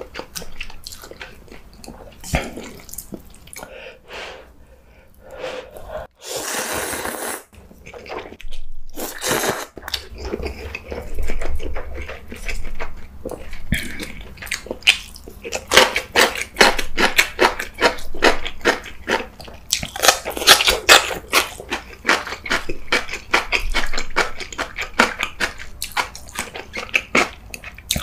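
Close-miked eating sounds: a long slurp of instant ramen noodles about six seconds in, then wet chewing and crunching with many quick mouth clicks, busiest in the second half.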